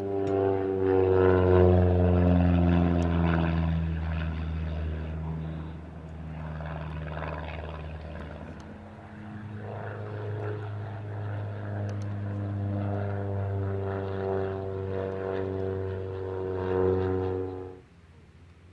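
A Christen Eagle II aerobatic biplane's four-cylinder Lycoming engine and propeller droning in flight. The pitch falls over the first few seconds as the plane passes, then the engine runs steadily, swelling and fading as it manoeuvres, until the sound cuts off abruptly near the end.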